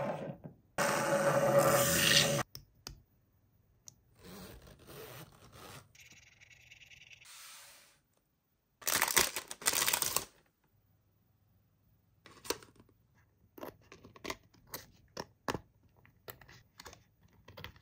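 Plastic packaging torn open and crinkled in two loud stretches, then a run of small sharp clicks from the metal backs of enamel pins being worked on their card backing.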